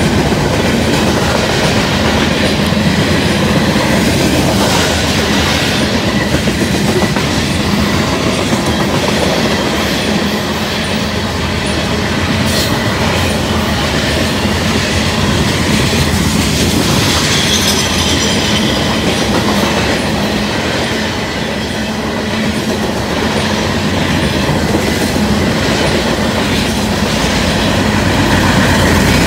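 Loaded grain train of covered hopper cars rolling past at speed: a steady heavy rumble with the clickety-clack of wheels over the rail joints. A brief high squeal comes a little past halfway.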